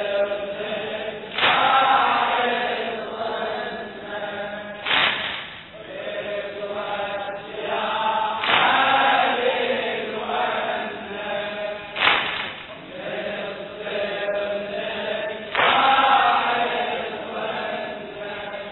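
Group of men chanting the refrain of an Iraqi Shia latmiya in unison, the chant surging after a sharp beat that falls about every three and a half seconds, the chest-beating (latm) that keeps time with it.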